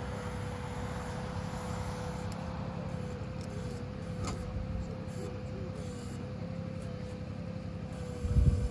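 Steady low mechanical hum with a constant tone, like a motor or engine running, and a brief loud low thump near the end.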